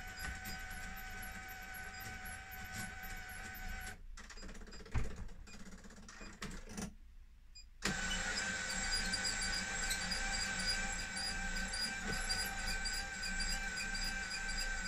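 Electric drive motor of a Bright Tech Developments Power Blind bus destination display, whining steadily as it scrolls the letter blinds. It stops about four seconds in, a single click follows, and after a short near-silence the motor starts again abruptly near eight seconds and keeps running.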